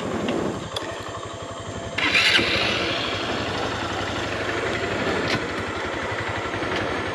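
Motorcycle engine running, getting louder about two seconds in and then holding steady.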